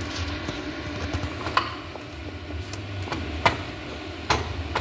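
Sharp knocks and clicks of a film roll and its holders being handled and seated on the feeder rollers of a UV DTF printer: three distinct knocks, the last two closer together, over a low steady hum.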